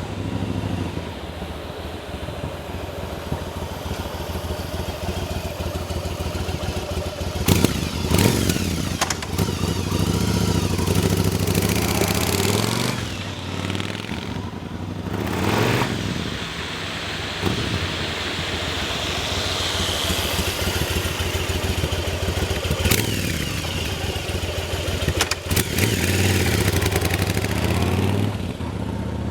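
Yamaha BT1100 Bulldog's air-cooled V-twin engine running at idle and blipped several times, the revs rising and falling quickly, with a few sharp cracks during the revs.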